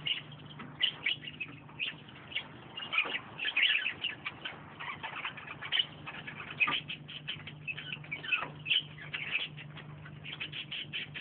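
A group of dwarf mongooses keeping up a stream of short, high-pitched chirps and peeps, many quick calls overlapping irregularly.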